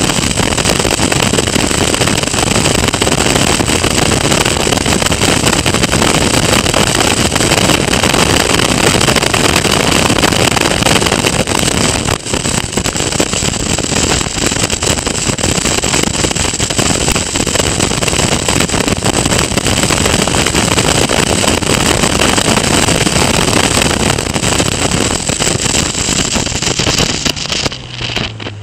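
Onboard sound of a Caterham Academy race car at racing speed: the engine running hard under heavy wind rush on the microphone, with a steady high-pitched whine over it. Near the end the high whine cuts out and the noise drops as the car slows for a tight corner.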